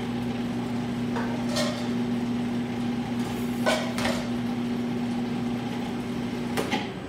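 Food processor motor running with a steady hum as it blends egg yolks and hot clarified butter into hollandaise. A few sharp knocks and clinks of a metal ladle and dishes sound over it, the loudest in the middle, and the motor cuts off with a click shortly before the end.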